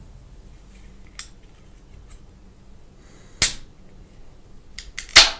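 A few sharp clicks and knocks from a drink can being handled: one strong one about three and a half seconds in, then a quick cluster near the end, the last the loudest.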